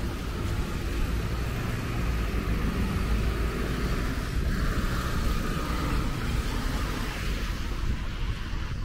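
City street traffic: vehicles passing with a steady low rumble.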